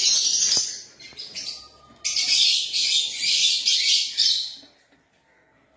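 Male Fischer's lovebird giving high-pitched chattering calls: a short bout at the start and a longer one from about two seconds in, lasting over two seconds.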